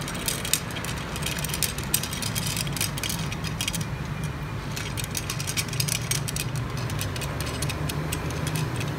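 Light metallic clicks and clinks of bolts and washers being handled and fitted into the folding bed's powder-coated metal frame, many small ticks in quick irregular succession over a steady low hum.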